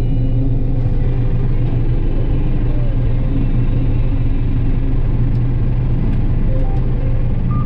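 John Deere 9770 combine running steadily under load while harvesting soybeans, a continuous low drone of engine and threshing machinery.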